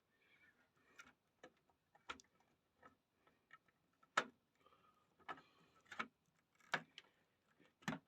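Faint, irregular light clicks and taps with some rustling from handling a PC's 24-pin ATX power cable and its plastic connector.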